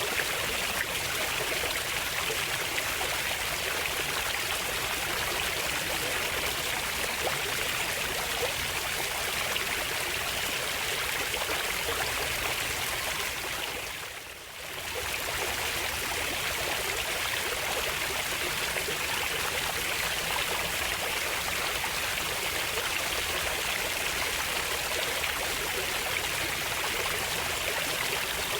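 Running water flowing steadily, with a brief fade down and back up about halfway through.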